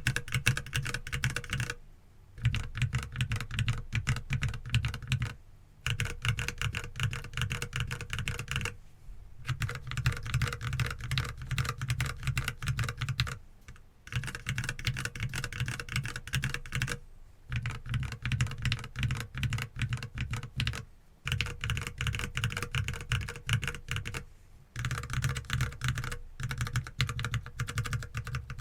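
Typing test on a mechanical keyboard with Gateron Milky Yellow linear switches and dye-sublimated PBT keycaps: fast runs of keystrokes broken by short pauses every few seconds.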